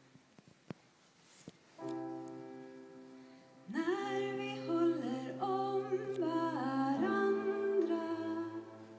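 Live song: an accompanying chord sounds about two seconds in and fades. About halfway through, a woman begins singing held notes that slide between pitches.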